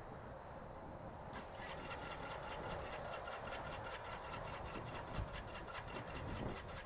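Bullit Bluroc motorcycle engine running at a low idle, with a rapid, even ticking of about seven beats a second that sets in about a second and a half in. The engine tends to stall at low revs after sitting for a couple of weeks, which the owner thinks needs a little running in.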